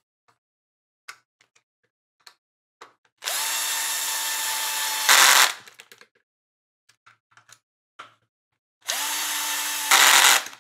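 Bosch cordless screwdriver driving screws into a plastic RC car chassis, in two runs of steady motor whine about four seconds apart. Each run rises briefly in pitch as it spins up and ends in a short, louder, harsher burst as the screw tightens down. Light clicks of the parts being handled come in between.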